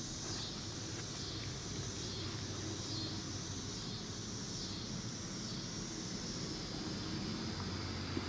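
Outdoor ambience: insects chirring in a high band that swells and fades about once a second, over a low, steady rumble of road traffic.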